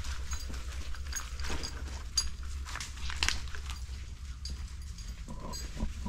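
Footsteps crunching and rustling through dry leaf litter and undergrowth, a scatter of irregular crackles and snaps, over a steady low rumble.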